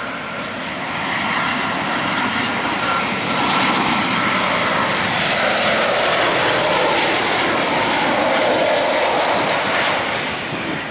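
Boeing 737-800's CFM56-7B jet engines on landing approach, passing close: a loud jet rumble and rush that builds about a second in and stays at its loudest for several seconds, with a high engine whine that drops slightly in pitch as the aircraft goes by, easing off near the end just before touchdown.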